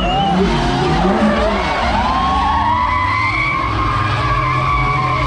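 Drift cars in a tandem run, engines at high revs with tyres skidding. The revs rise and fall in quick sweeps, then hold steady from about two seconds in.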